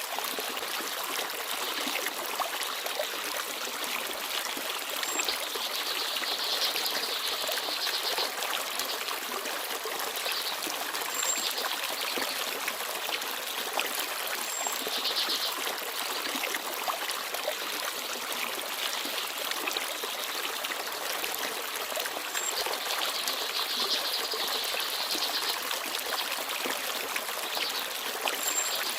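Small forest stream babbling and trickling steadily.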